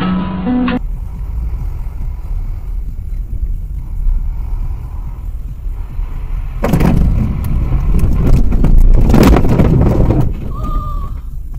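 Dashcam sound of a moving vehicle: low engine and road rumble inside the cabin, swelling into a loud, noisy stretch with knocks from about seven to ten seconds in. The tail of a strummed guitar track cuts off at the very start.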